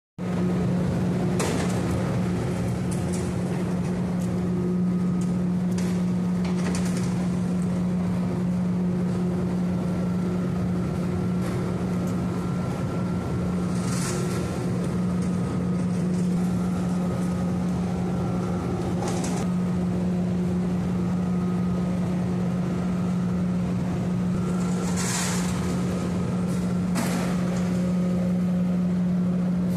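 Steady, loud hum of heavy machinery with one strong low tone, running without a break, with a few brief sharper noises on top.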